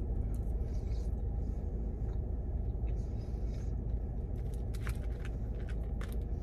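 Steady low rumble of a car cabin. A few faint clicks and scrapes of a metal fork against a plastic food tray come about four to five seconds in and again near the end.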